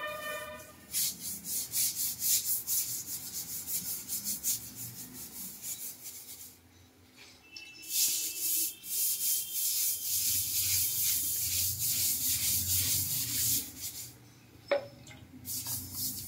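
A hand scrubber rubbed hard against ceramic wall tiles in quick back-and-forth strokes, scraping off grime, with a pause of about a second and a half midway. The scrubbing stops shortly before the end, followed by a single sharp tap.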